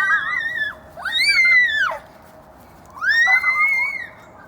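Children squealing in play: three long, high-pitched held cries, each about a second long, rising and then falling away, as in a 'wheee' of pretend flight. The first cry fades out just after the start, and the other two come about a second in and near the end.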